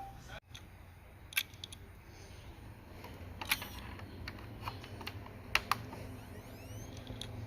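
A handful of sharp, irregularly spaced clicks and taps over a low steady hum.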